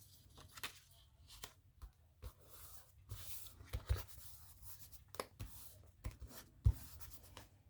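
Paper cut-outs being handled and pressed down for a collage: faint rustling and rubbing of paper with scattered light taps and clicks.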